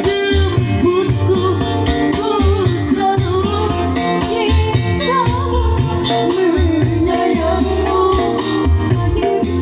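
Electronic keyboard music with a steady thumping bass beat, shaker and tambourine percussion, and a wavering lead melody.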